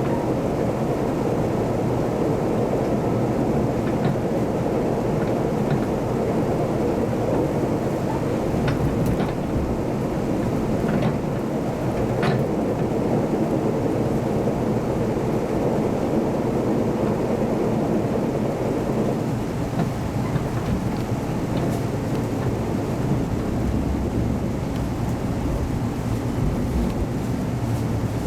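Interior running noise of a KiHa 181 series diesel railcar: a steady low rumble of the engines and wheels on the rails, with a few faint sharp clicks.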